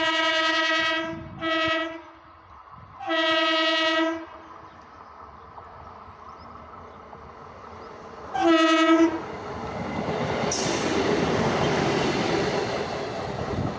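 An orange self-propelled diesel rail car sounds its horn in four blasts as it approaches: a long blast ending about a second in, a short toot, a longer blast, and a last one about eight seconds in. Then its wheels and engine rumble louder as it runs past close by on the track.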